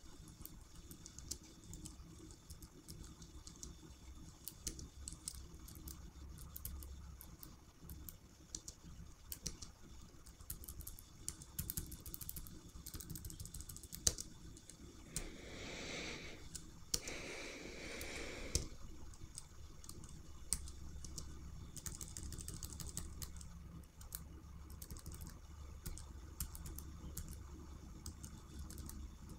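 Computer keyboard keys pressed in short, irregular taps, used to step through and adjust an on-screen flight-controller menu. About halfway through there are two short rushes of breathy noise.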